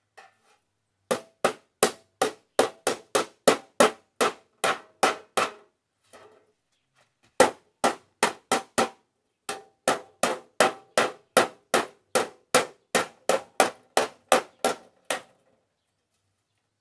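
A hammer striking a steel plate in two runs of quick, even blows, about four a second, each with a short metallic ring. There is a pause of about two seconds between the runs.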